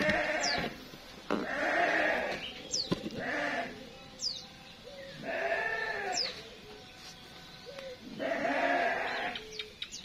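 A goat bleating five times, each call about a second long, with short, high, falling chirps from small birds in between.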